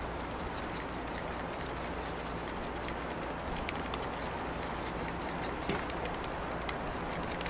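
Steady rushing of a river flowing over rocks, with a few faint clinks of a spoon stirring sauce in a small cup.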